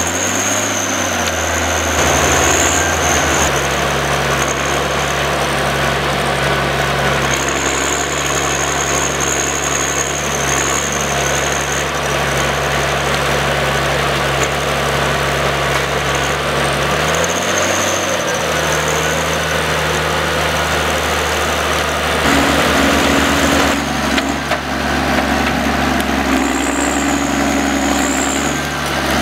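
John Deere 1110D forwarder's diesel engine running steadily, with its pitch dipping and rising a couple of times and a higher tone joining in near the end. A faint high whine comes and goes over it.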